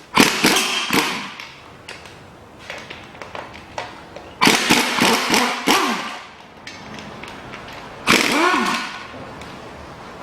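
Power impact wrench run in three short bursts, about four seconds apart, each whirring up and down with rapid hammering as it undoes bolts. Light clicks of tools and bolts come between the bursts.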